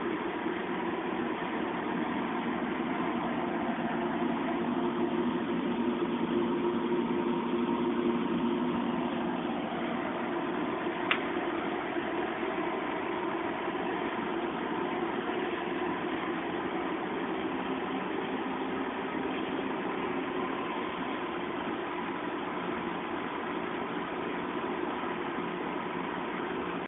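Air conditioner running with a steady hum and whoosh, its drone strongest in the low-middle range with a fainter tone above. One brief click sounds about eleven seconds in.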